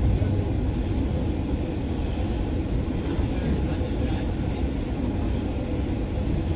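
Bus in motion heard from inside the passenger cabin: a steady low rumble of engine and road noise.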